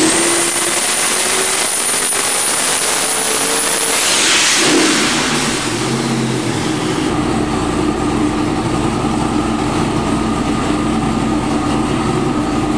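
632 cubic inch twin-turbo big-block Chevy V8 at full throttle on an engine dyno at the end of a power pull, loud, with a high steady whistle over it. About four seconds in, the throttle closes, the whistle falls away, and the engine settles to a steady idle.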